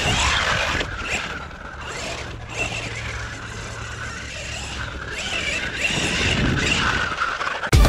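Losi Super Rock Rey 1/6-scale 8S brushless RC rock buggy driving hard on dirt: the brushless motor and drivetrain whine rising and falling with the throttle over the noise of the tyres churning and spraying dirt.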